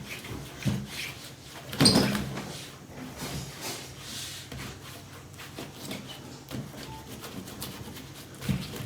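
Knocks and clatter of small objects being handled and set down during pretend cooking, with one louder knock about two seconds in.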